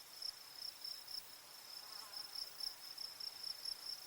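Crickets chirping faintly and steadily: a high, even pulsing of several chirps a second.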